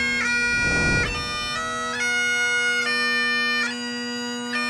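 Bagpipes playing a tune over a steady drone, the melody notes changing every half second to a second.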